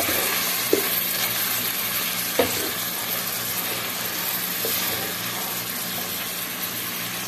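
Minced meat (keema) sizzling steadily as it fries in a pot, stirred with a wooden spatula that knocks lightly against the pot a few times.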